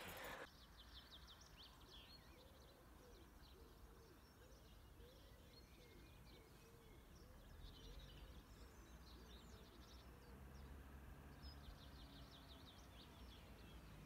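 Near silence outdoors with faint birdsong: quick high chirps and trills that come and go, and a low repeated cooing call through the middle, over a faint low background rumble.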